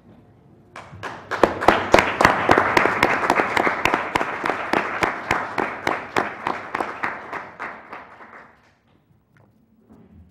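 A group of people applauding. It starts about a second in, is loudest soon after, and fades away over the next several seconds.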